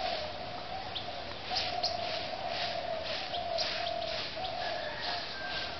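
Birds calling: a repeated call held on one mid-pitched note, with a higher thin whistle joining about five seconds in.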